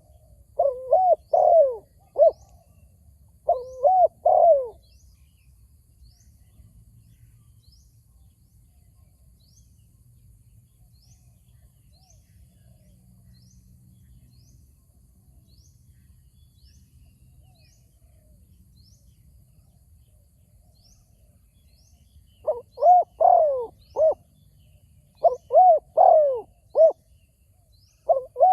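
Spotted doves cooing in loud phrases of several coos each: a few phrases in the first five seconds, a long pause, then steady cooing again from about 22 seconds on. A faint short high chirp repeats about once a second throughout.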